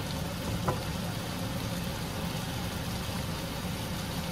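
Chicken cooking in a pan: a steady sizzling hiss, with a low hum underneath and a single click about two-thirds of a second in.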